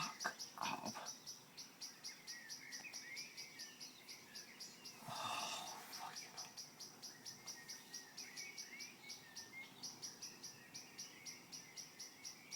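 A bird calling one high note over and over, evenly and rapidly, about four times a second, with other birds chirping softly underneath. A brief rushing noise about five seconds in.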